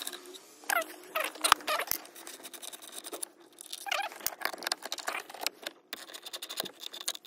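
Socket ratchet clicking in quick runs as the shifter's mounting bolts are loosened, with small metal bolts rattling as they are handled. A few short falling squeaks come through about a second in and again around four seconds in.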